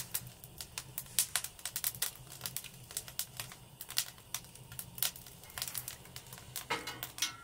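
Wood fire crackling: many irregular sharp pops and snaps, with a brief rustle near the end.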